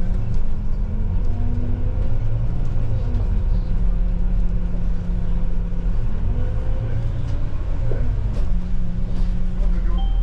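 Solaris Urbino IV 12 city bus driving, heard from inside the cabin: engine and drivetrain running with low rumble and road noise, the engine note stepping up and down several times as the bus changes speed, with a rising whine about six seconds in.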